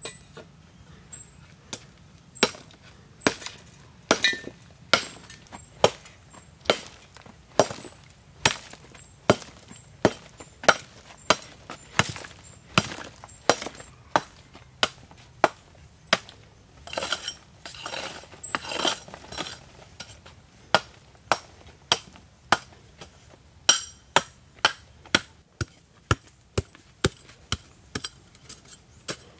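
A long-handled hoe chopping into hard, stony soil over and over, a little more than one sharp blow a second, breaking up stones and dirt. There is some scraping of loose soil partway through, and the blows are lighter near the end.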